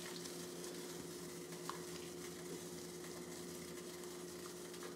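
Faint kitchen room tone: a steady low hum under a soft even hiss, with one small click a little under two seconds in.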